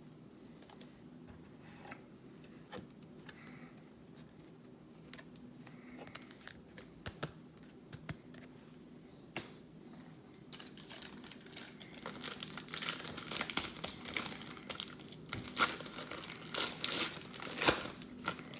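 A foil trading-card pack wrapper being crinkled and torn open, after a few scattered clicks of cards being handled; the crackling turns dense about halfway through and stays busy to the end.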